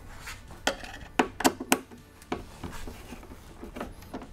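Sharp metallic clicks and taps, several close together in the first two seconds and a few fainter ones later, as a hex driver and small bolts are worked into the threaded inserts of a paramotor fuel tank's aluminium mounting bracket.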